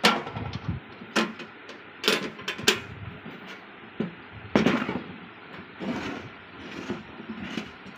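Steel cantilever tool box being folded shut and handled: a series of sharp metal clanks and knocks from its trays and lids, the loudest in the first five seconds, then softer knocks.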